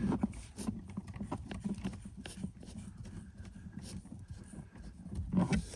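Light, irregular clicks and taps of hands working at a car's wiring plug.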